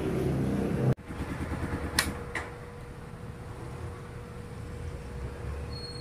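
Euro Daanhari 186 motorcycle engine idling while still cold, cut off abruptly about a second in. After it comes a quieter background with a faint steady hum and two sharp clicks.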